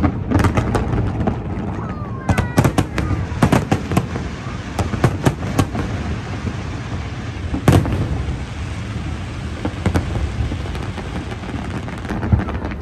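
Aerial fireworks display: a rapid run of sharp bangs and crackles over a continuous low rumble, with the loudest single bang a little past the middle.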